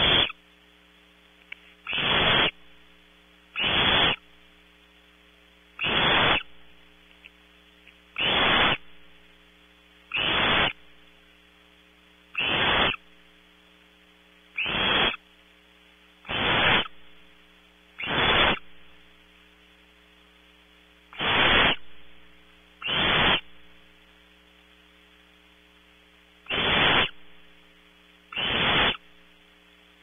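Barn owl nestlings giving rasping, hissing begging calls for food, about one every two seconds. Under them runs a steady electrical mains hum.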